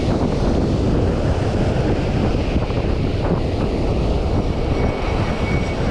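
Wind buffeting the microphone over waves breaking on the shore, a steady, loud rumble of noise.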